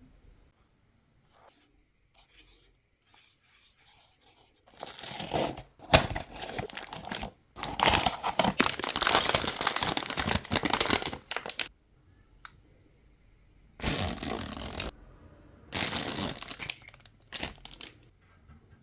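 Blind-box packaging being torn open and crinkled by hand. There are light rustles at first, then a long stretch of loud tearing and crackling about five seconds in, and two shorter tears later on.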